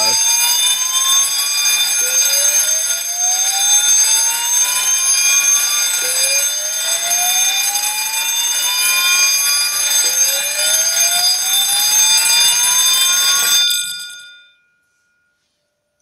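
Fire alarm system in full alarm after a smoke detector was tripped with a test magnet: the 100-volt speakers play a slow rising sweep tone, each sweep about four seconds long, over a fire bell ringing continuously. Both stop abruptly about fourteen seconds in.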